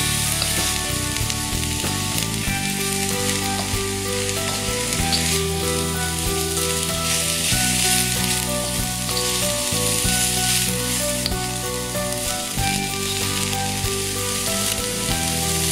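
Shredded white cabbage and leek sizzling in hot oil in a wok as they are stir-fried with a spatula. Background music with held notes plays underneath.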